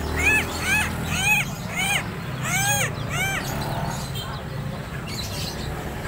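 Koakaok (helmeted friarbird) calling: a quick series of loud rising-and-falling notes, about two or three a second, which fade out a little past halfway.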